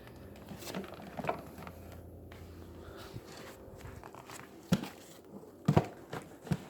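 Handling noise: faint rustling and fumbling, then a few sharp knocks and clicks in the last two seconds.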